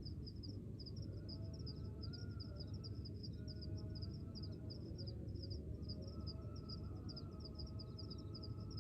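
Small birds chirping in a rapid, continuous run over a steady low rumble.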